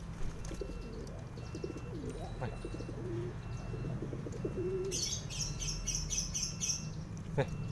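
Domestic pigeons cooing, a low wavering coo repeated over several seconds. Near the end comes a short, quick run of high chirps.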